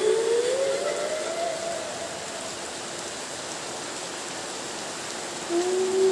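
Steady rain falling at night. Over it, a long wavering tone rises in pitch and fades out within the first couple of seconds, then comes back in near the end.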